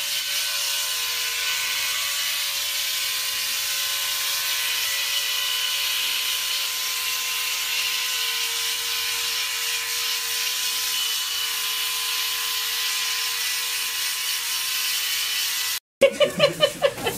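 Electric hair clipper buzzing steadily as it is run over a small monkey's fur; it cuts off suddenly about a second before the end.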